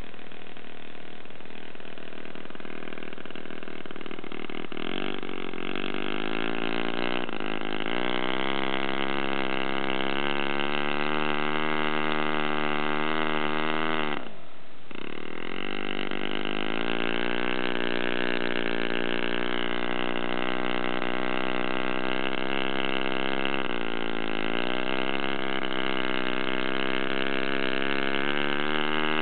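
Enya R1.20 four-stroke glow model engine running on a test stand, turning a propeller. Its revs climb in steps over the first several seconds, then drop sharply about halfway through and pick straight back up. It dips and recovers once more near the end.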